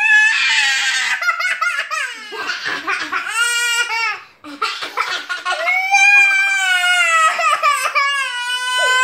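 A young girl laughing hard while a small boy cries, with quick bursts of laughter early on and long high-pitched wails in the second half.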